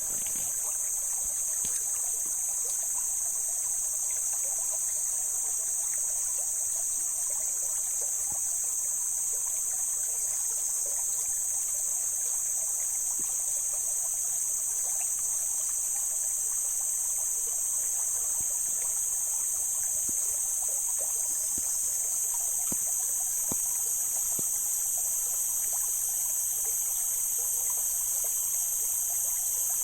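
Mountain stream water trickling and flowing over rocks, steady throughout, under a constant shrill high-pitched hiss that is louder than the water.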